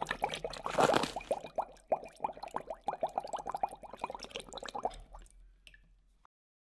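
Water bubbling: a rapid stream of small plopping bubbles, about five a second, thinning out and fading away after about five seconds.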